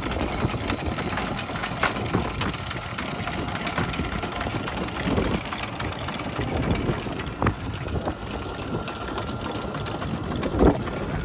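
Motor yacht's engines idling with a steady low rumble, wind buffeting the microphone. A few sharp knocks, the loudest near the end.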